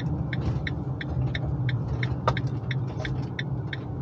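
Van's turn-signal indicator ticking steadily, about three clicks a second, over engine and road rumble inside the cab as the van turns.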